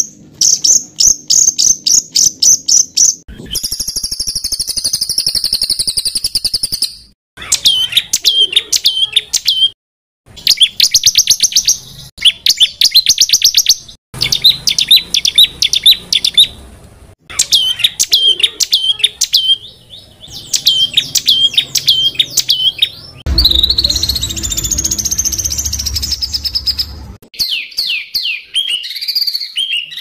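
Songbird masteran recording: loud, rapid-fire phrases of fast repeated high notes and chattering trills ('tembakan rapat'). The phrases come in short spliced segments with brief gaps and sudden changes between them.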